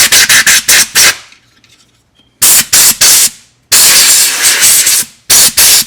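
Aerosol can of electronic cleaner sprayed onto electrical connectors in quick short hissing bursts, with one longer spray in the middle.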